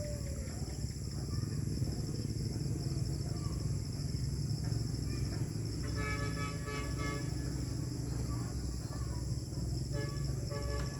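Distant dump-truck horns beeping in two spells, about six seconds in and again near the end, over a steady chorus of insects and a low rumble.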